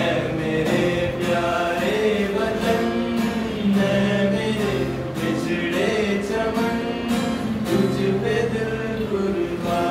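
A group of voices singing a melody together to a strummed acoustic guitar.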